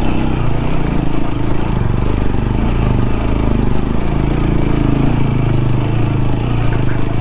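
TVS Apache RTR 200 4V motorcycle's single-cylinder engine running under load on a steep climb up a broken hill road, its pitch wavering slightly as the throttle changes.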